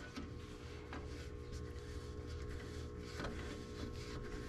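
Faint handling sounds, light rubbing with a couple of small clicks, over a steady low hum.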